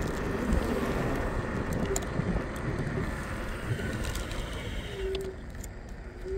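Scooter riding along a paved street: a steady rumble of wheels on the road and wind on the microphone, with a thin steady whine that fades in and out and a few sharp knocks from bumps. The noise eases a little near the end.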